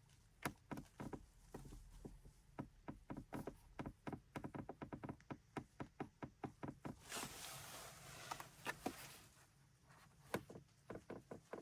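Untreated left side of a Volkswagen Touareg's centre console and dash trim creaking and clicking: a faint, irregular run of short creaks, several a second, from plastic trim panels rubbing against each other. There is a pause of about a second before a last short cluster near the end.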